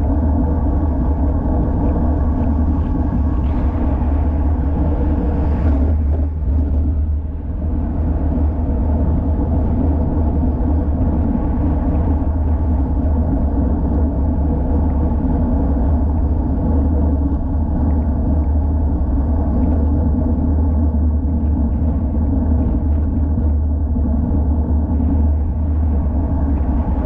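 Steady wind rumble on an action camera's microphone during a road-bike ride, with tyre and road noise underneath; it eases briefly about six to seven seconds in.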